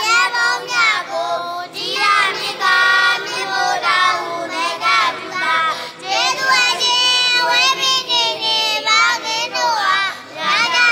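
A high-pitched voice singing a slow melody in long phrases, with wavering held notes and short breaks for breath.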